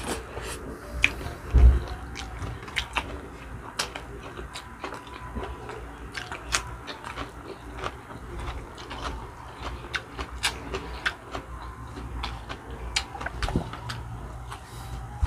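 Mouth sounds of two people eating chicken feet adobo with their fingers: irregular wet chewing and lip-smacking clicks. A dull thump about a second and a half in is the loudest sound.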